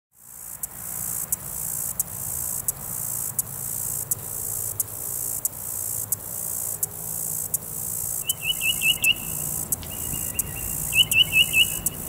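Insect chorus, a continuous high shrill that pulses about once every 0.7 seconds. In the second half a bird calls two quick series of high chirps, with a held note between them.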